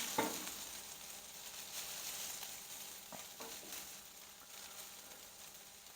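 Shredded hash browns sizzling in butter on a Blackstone flat-top griddle set on low, a steady hiss. A metal spatula scrapes the griddle just after the start and lightly twice more about three seconds in.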